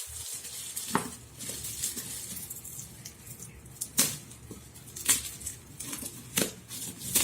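A shipping package being handled and opened by hand: four sharp knocks or taps, spaced a second or more apart, over light rustling of the packing.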